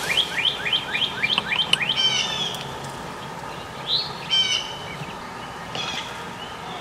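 A bird singing: a quick run of about ten short rising chirps over the first two seconds, then a few separate calls spaced out over the rest.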